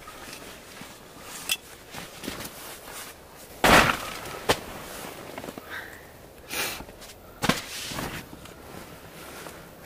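Several separate sharp cracks and crunches, about five in all, the loudest a short crunching burst about four seconds in.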